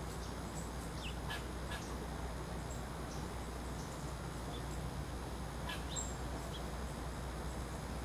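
Small songbirds giving short, high chirps and call notes, a few at a time, with clusters around one to two seconds in and again around six seconds, over a steady low background hiss.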